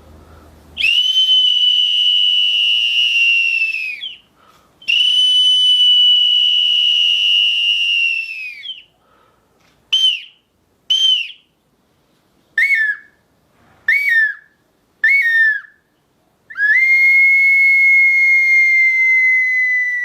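Handmade multi-chambered wind instrument, the 'huracán', blown as a clear high whistle: two long notes of about three seconds each, then a run of short toots that step down in pitch, then a long, slightly lower note near the end. Each note sags in pitch as the breath runs out.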